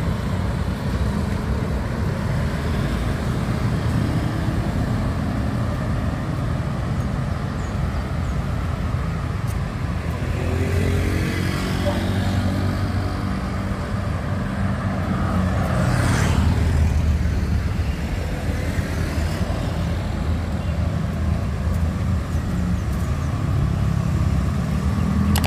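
Road traffic on a city street: steady engine noise of cars and motorbikes, with one vehicle passing close about sixteen seconds in.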